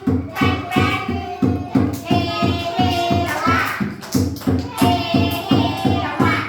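Children's song about animals: singing over backing music with a steady beat.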